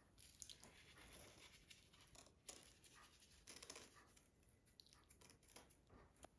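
Faint, irregular rustling and light crackling from hands handling food on the kitchen table, with a few sharper crackles scattered through.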